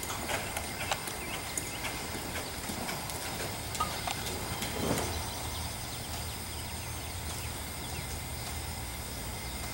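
Hoofbeats of a horse moving over soft arena dirt.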